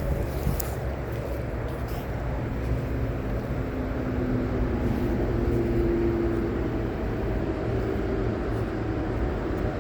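Steady low outdoor rumble, with a motor vehicle's engine hum that swells through the middle and then fades as it passes.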